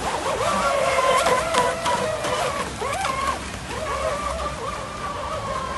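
Radio-controlled boat motors whining at high speed, the pitch dropping and climbing again several times as the throttle changes, over the hiss and splash of the hulls' spray.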